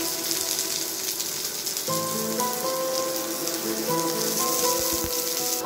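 Sliced onions sizzling in hot oil in a frying pan, a steady hiss throughout. Soft background music plays underneath, with held notes that change about two seconds in and again about four seconds in.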